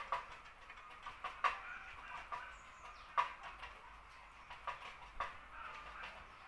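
Chickens clucking: short, sharp clucks at irregular intervals over faint farmyard background noise.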